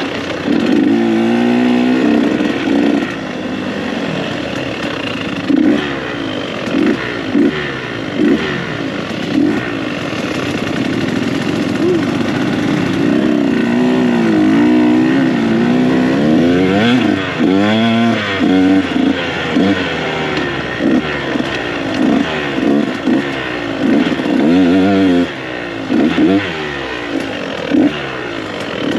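KTM 125 SX two-stroke dirt bike engine revving up and down under riding throttle, the pitch rising and falling. From about five seconds in it gives a series of short, sharp throttle bursts, roughly one a second.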